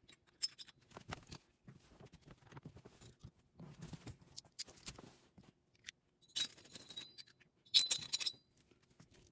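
Small metal clicks and clinks as a screwdriver and steel lock washers knock against the cylinder head studs, with two brief ringing, jingling clusters near the end.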